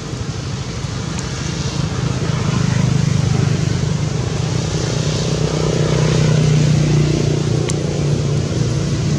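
A motor vehicle's engine running steadily nearby, with a low hum that grows louder about two to three seconds in and then holds.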